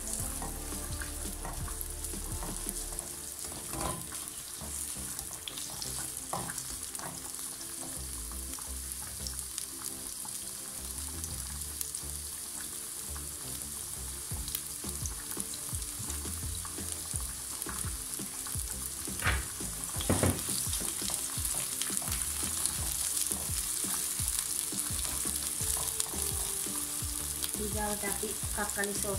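Sliced red onion sizzling in oil in a nonstick pan, stirred with a utensil at first, with a steady hiss and scattered small clicks. Two louder knocks come about two-thirds of the way through.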